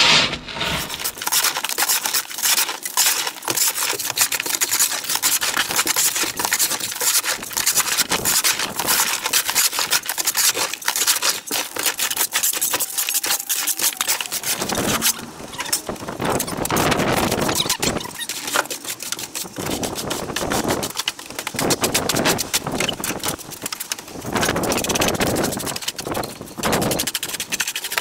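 Recycled stone hardcore being unloaded by hand from the back of a van: a dense, irregular clatter of stones knocking together.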